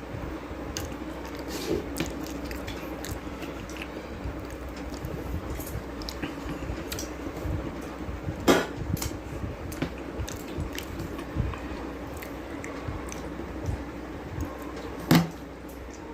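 Sounds of a person eating from a plate or bowl: soft chewing and squishy mouth sounds with scattered light clicks of utensils or fingers on the dish. There are two louder clinks, about eight seconds in and near the end, over a steady low hum.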